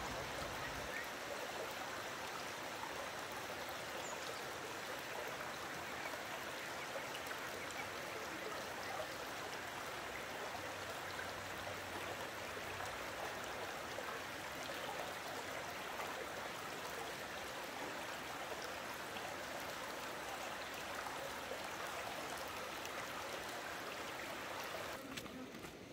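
Running water rushing steadily, like a stream, with no change in level. It cuts off abruptly shortly before the end.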